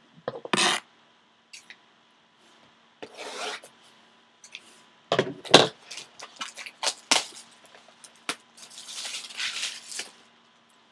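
Clear plastic shrink-wrap being torn and peeled off a sealed cardboard trading-card box: rubbing and scraping of the wrap on the box, a quick run of sharp crackles and clicks as it splits, then crinkling plastic being balled up near the end.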